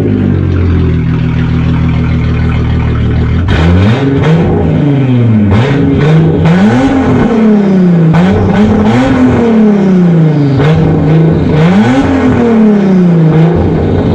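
Volkswagen Corrado SLC's VR6 engine running at a steady speed, then revving up and falling back again and again, about once every two seconds.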